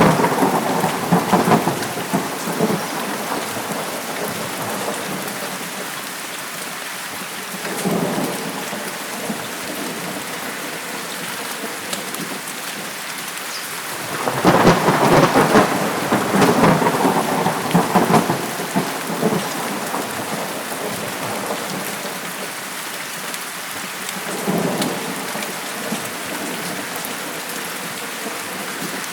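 Steady heavy rain with repeated rolls of thunder. One rumble dies away at the start, a small one comes about a quarter of the way in, the longest and loudest rolls through the middle, and another comes near the end.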